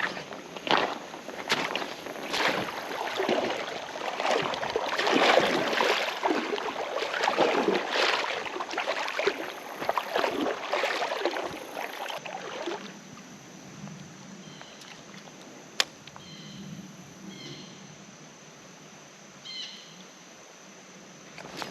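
Footsteps wading and sloshing through shallow creek water for about thirteen seconds, then stopping. After that it is quieter, with a few short high chirps and one sharp click.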